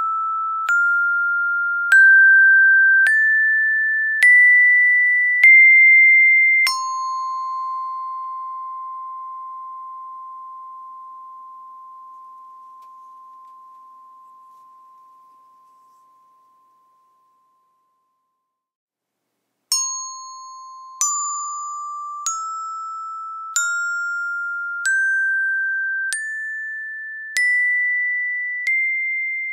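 Auris 8-tone diatonic glockenspiel with brass-alloy bars on a maple resonating body. The upper notes of a rising C major scale are struck one by one, then a low C is left ringing and fades away over about ten seconds. After a couple of seconds of silence, the full scale from low C to high C is played upward again, a note a little over a second apart.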